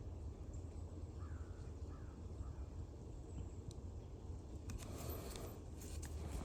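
Low steady rumble outdoors, with three faint short bird calls in the first half. Rustling and light crackles start about five seconds in, like movement through dry leaves or brush.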